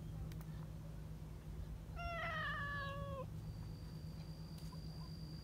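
A domestic cat meowing once, about two seconds in: a single call of just over a second that falls slightly in pitch at the end.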